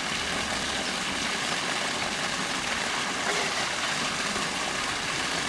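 Water from a pool's waterfall feature pouring steadily into the pool: an even, unbroken rushing splash.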